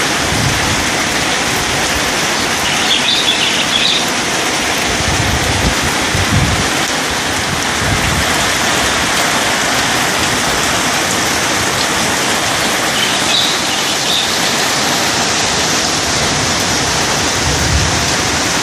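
Heavy rain falling, a steady, even hiss. A brief high chirp cuts through it twice.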